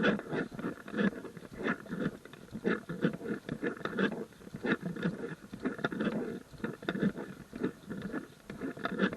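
Footsteps of hikers walking on a trail, a step about every half second.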